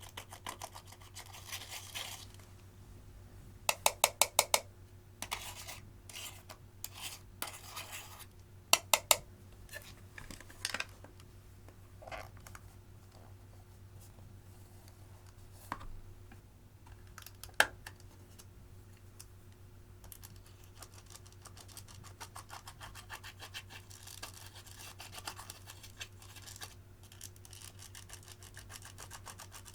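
Slime being squeezed, stretched and poked by hand, making sharp clicking pops. There is a quick run of loud pops about four seconds in, a few scattered ones after that, and a steady fine crackle in the last third.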